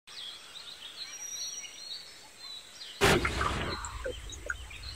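Birds chirping faintly over quiet outdoor background noise. About three seconds in, a sudden louder rush of noise cuts in and settles into a steady low rumble, with the birds still chirping over it.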